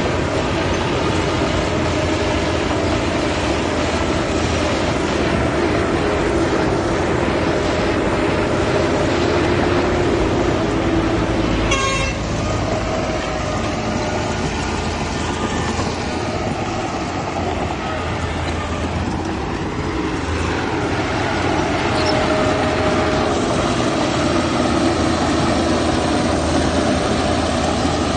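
Diesel engines of heavy landfill machinery (dump trucks and a bulldozer) running steadily, with a short horn toot about twelve seconds in.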